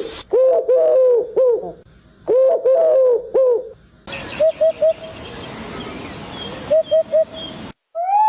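Bird calls: two bursts of short, repeated arched calls, then a different recording with quick triplets of calls over a steady hiss and faint high chirps, which cuts off near the end.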